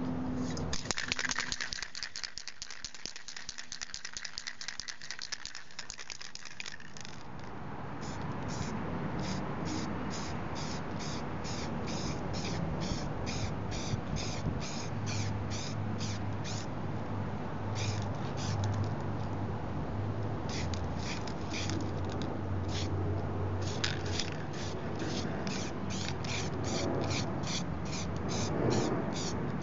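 An aerosol spray paint can being shaken hard, its mixing ball rattling rapidly for about six seconds. Then come short, evenly spaced sharp sounds from the can, about two a second, with a few brief pauses.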